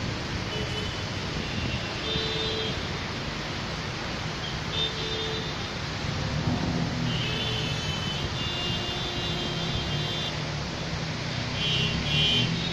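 Rain-soaked city traffic: a steady hiss of rain and tyres on wet roads, with vehicle horns honking several times, one held for about three seconds around the middle.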